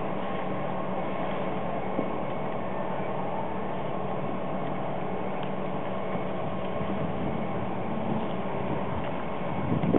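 Steady machine hum with several held tones over a faint hiss, and a single small click about two seconds in.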